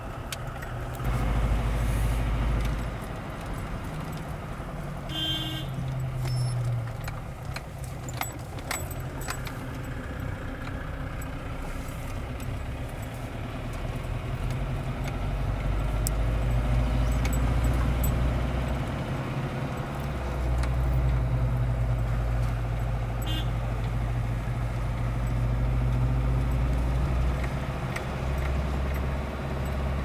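Engine and road noise heard inside a vehicle's cabin while driving, the engine's drone swelling and easing several times with the throttle. Light rattles and clicks from the cabin come and go, mostly in the first half.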